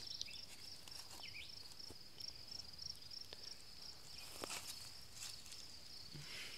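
Insects chirping in a steady, high, pulsing trill, with scattered light rustles and clicks of movement in the grass.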